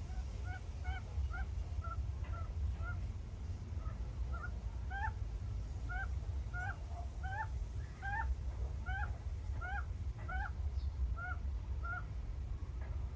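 A bird calling over and over, short rising-then-falling notes at about two a second that stop near the end, over a steady low rumble.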